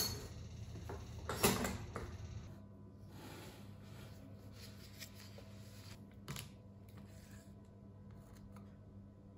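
Low steady room hum with a few scattered light clicks and knocks of small objects being handled, the loudest about a second and a half in; the hum drops away after about two and a half seconds.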